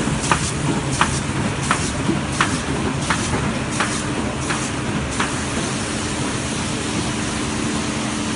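Miller TP 104-5 sheetfed offset printing press running, a steady mechanical hum with a sharp click repeating about every 0.7 s. The clicks stop about five seconds in, leaving the steady hum with a low drone.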